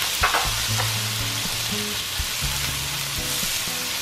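Shrimp and vegetables sizzling in oil in a nonstick wok on high heat, while a spatula stirs and scrapes them around; a couple of sharp spatula clicks against the pan come in the first second.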